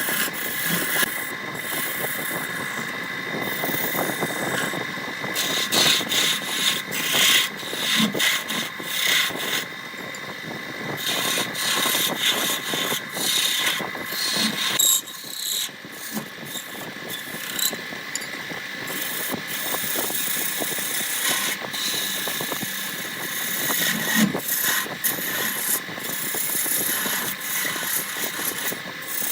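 Woodworking lathe running with a steady whine while a turning tool cuts the spinning wood, with many short, uneven scraping strokes.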